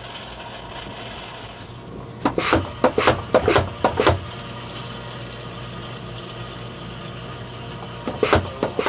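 Sharp clattering knocks from handling a hand-pump vacuum oil extractor and its suction hose: a handful over about two seconds, then a shorter burst near the end. A steady low hum runs underneath.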